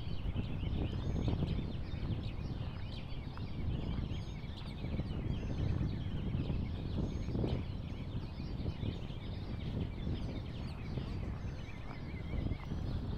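A flock of birds calling over and over in many short, wavering cries, above a steady low rush of wind and fast-flowing river water.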